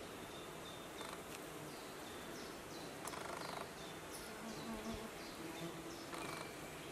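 Faint buzzing of a flying insect, with a run of short, high falling notes, about two or three a second, through the middle.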